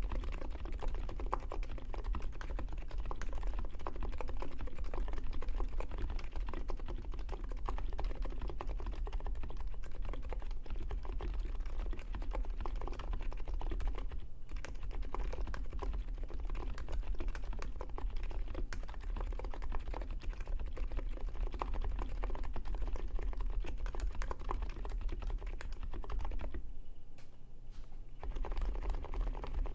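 Continuous typing on a NiZ X87 electro-capacitive keyboard with KAT Alpha keycaps and stem sliders lubed with Krytox GPL 105: a soft thock of keystrokes, with a brief pause about 14 seconds in and a short lull near the end.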